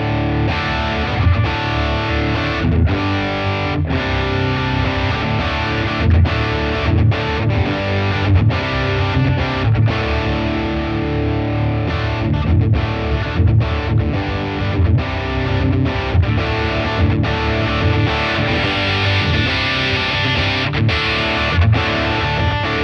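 Electric guitar played through a J Rockett "The Dude" overdrive pedal, a Dumble Overdrive Special–style circuit, giving an overdriven tone. It runs through chords and licks, with many brief stops between phrases.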